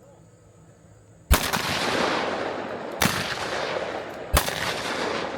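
Three shotgun shots at clay targets, spaced about a second and a half apart. Each sharp report rolls away in a long echo.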